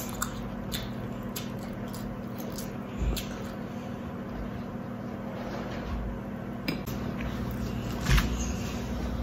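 Tableware clinking and knocking now and then during a meal, with louder knocks about three seconds in and near the end, over a steady low hum.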